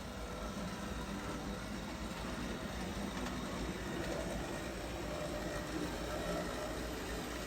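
HO scale model steam locomotive (a Bowser 4-6-6-4 Challenger) running on its track: a steady whir of the electric motor and gearing with the wheels rolling on the rails.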